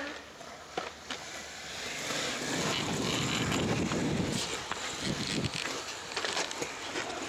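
Skateboard wheels rolling over concrete, a steady rumble that swells through the middle, with a few sharp clacks of the board.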